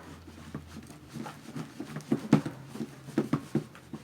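Jumbo fluffy slime of glue and shaving cream being mixed with activator, still wet and not yet activated: irregular squishing and sticky popping, starting about a second in with the loudest squelch near the middle.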